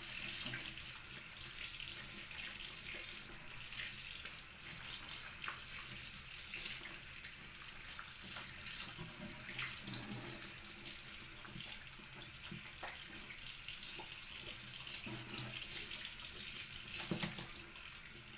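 Tap water running steadily into a sink, with small splashes and knocks scattered through it.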